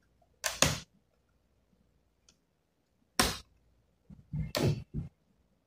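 Short plastic clicks and scrapes of a flat card being pushed into the seam of a laptop's plastic bottom cover to pry it loose: one about half a second in, another about three seconds in, and a quick cluster just after four seconds.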